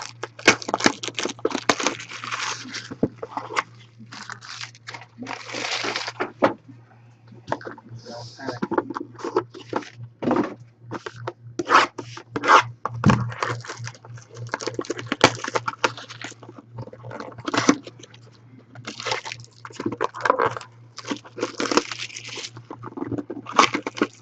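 A trading-card box and its packs being opened and handled: irregular crinkling, tearing and scraping of cardboard and wrappers, with cards sliding and clicking against each other, over a steady low electrical hum.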